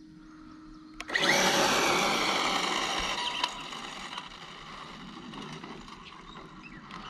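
Brushless-motor RC drag car launching about a second in: a sudden high whine from the electric motor and drivetrain, loudest at the launch and fading over the next few seconds as the car speeds away.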